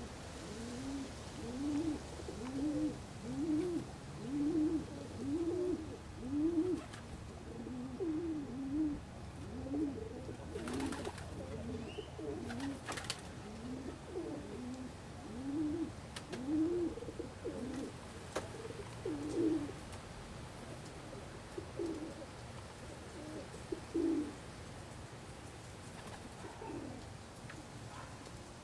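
Domestic pigeons cooing: a long run of low, rising-and-falling coos about one a second, thinning out after about twenty seconds. A couple of sharp clicks sound midway.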